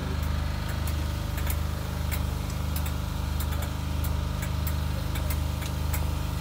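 Railway locomotive engine idling steadily, a low hum that swells and fades slightly in a slow regular pulse, with scattered light ticks over it.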